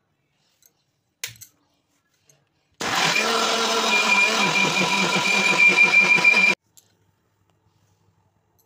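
Electric mixer grinder running for about four seconds, blending a wet tomato paste in its jar, with a steady high whine over the motor noise; it starts and cuts off abruptly. A short click from the jar being set on the base comes just before.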